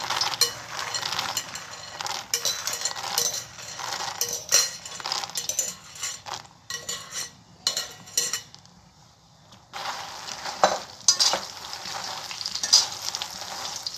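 Makhana (puffed lotus seeds) being stirred in ghee in a steel wok with a metal spatula: irregular scrapes and clinks of the spatula on the pan as the seeds are turned, over a light sizzle of the ghee, while they roast toward crunchy. The stirring stops for about a second a little past halfway.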